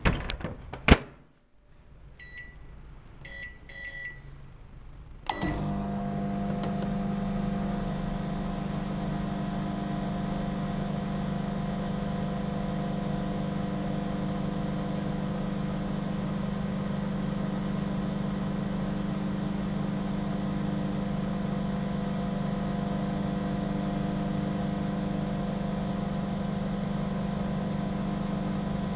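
Microwave oven being started: a couple of sharp clicks, then a few short high keypad beeps, and about five seconds in the oven starts running with a steady, even hum.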